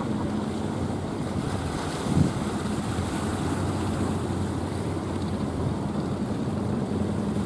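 Rough surf and churning water with the steady drone of fishing boats' engines as the boats push through breaking waves. Wind buffets the microphone, and a single thump comes about two seconds in.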